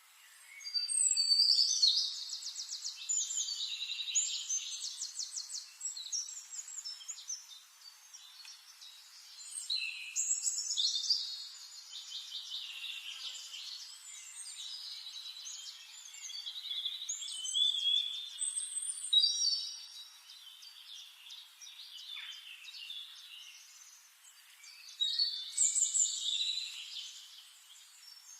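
Several songbirds singing: loud phrases of rapid trills and twitters come roughly every eight seconds, with softer chirps between them.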